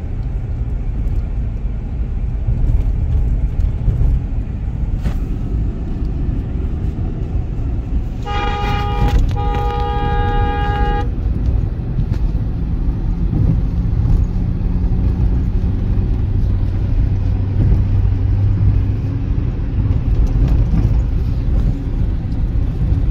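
Steady road and engine rumble inside a moving car's cabin. About eight seconds in, a vehicle horn honks twice, a short honk and then a longer one of about a second and a half.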